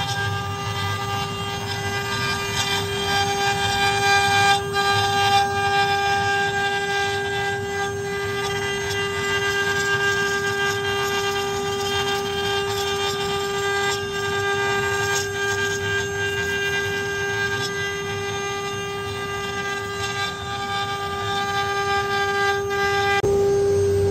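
Spindles of a four-head CNC wood router (2.2 kW each) whining at one steady high pitch while their bits carve wooden cylinders turning on rotary axes, with a rough cutting hiss underneath.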